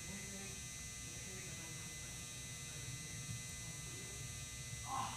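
Steady electrical hum and buzz, with faint voices in the background.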